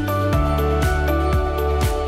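Background music: held instrumental notes over a bass line, with a steady beat about twice a second.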